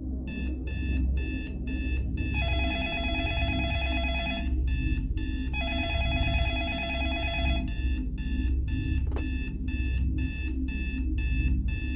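Instrumental song intro: a quick, even run of short bright ringing notes, about two to three a second, over a steady low bass, with two held chords partway through.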